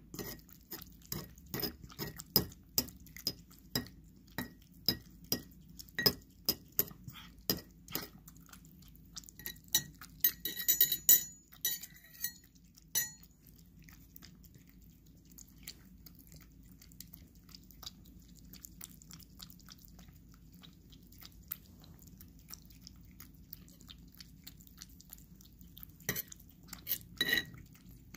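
Cat eating paté wet cat food from a ceramic bowl: chewing and licking with sharp clicks against the bowl about twice a second, a burst of louder clinking about ten seconds in, then quieter eating with a few more clinks near the end.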